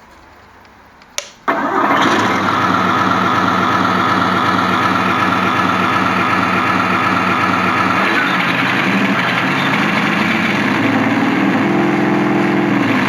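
Leopard 2A6 tank engine start sound from a Heng Long TK6.1 RC tank sound board, played through a home-cinema speaker: a click, then about a second and a half in the engine starts and runs steadily. Its note changes about two-thirds of the way through.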